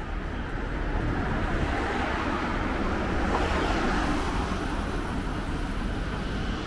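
A car drives past close by on a wet street, its tyres hissing on the wet asphalt, swelling to its loudest a few seconds in, over steady city traffic.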